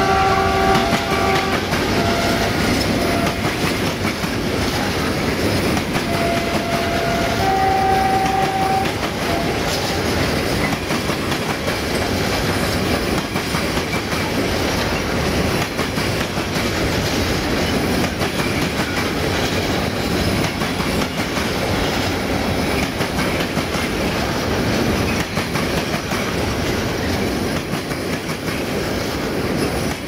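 The 060-DA diesel-electric locomotive's horn sounds a chord that ends about a second in, then a second two-note blast around seven to nine seconds in. Throughout, the long freight train rolls by with a steady rumble and wheels clicking over rail joints.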